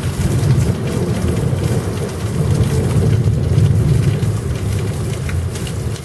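Rolling thunder: a long, low rumble that swells and eases, loudest about three to four seconds in and dying down near the end.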